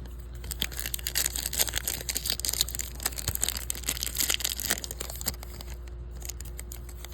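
Foil trading-card pack wrapper crinkling and tearing as it is handled, a dense run of crackles that thins out about five seconds in.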